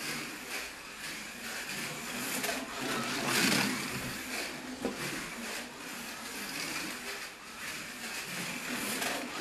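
Slot car with a Fly 911 chassis and Avant boxer electric motor lapping a wooden track: the motor whine and the tyres and pickup braids on the track swell and fade as it passes, loudest about three and a half seconds in.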